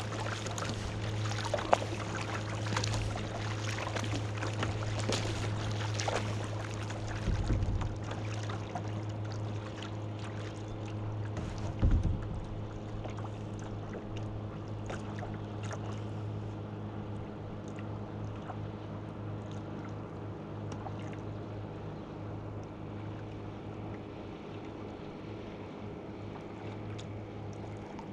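Kayak paddling on calm water: small splashes and drips from the paddle blades and water against the hull, busiest in the first half and thinning out later. There are two dull knocks, one about a quarter of the way in and one near the middle. A steady low hum runs underneath.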